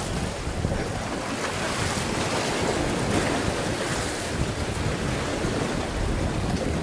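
Sea waves washing against the concrete tetrapods of a breakwater, a steady surf hiss, with wind buffeting the microphone.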